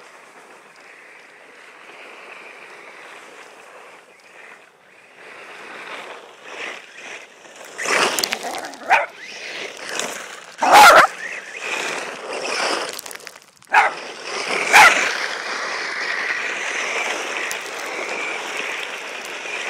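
RC buggy driving close by on loose gravel, its tyres spraying stones, with a dog barking over it. The loudest moments come as it passes close, about eight to fifteen seconds in.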